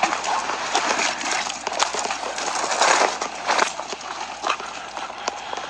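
Footsteps of a group of people walking over rough ground: irregular sharp steps and scuffs.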